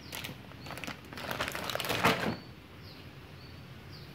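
Plastic packaging around welding accessories crinkling and rustling as it is handled, with a denser burst of crackling around two seconds in.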